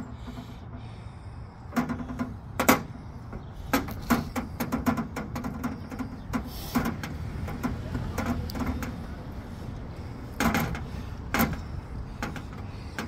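A hand tubing cutter being turned around a copper pipe to cut it: irregular clicks and metallic scraping from the cutter wheel and rollers on the pipe.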